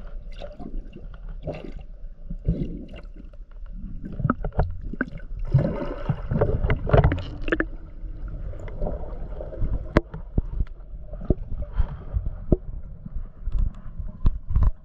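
Water gurgling and bubbling around an underwater camera, with a muffled low rumble and scattered clicks and knocks; one sharp click about ten seconds in.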